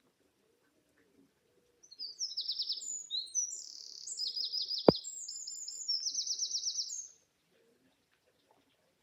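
A small songbird singing a fast, high, trilling song lasting about five seconds, with one sharp click about halfway through.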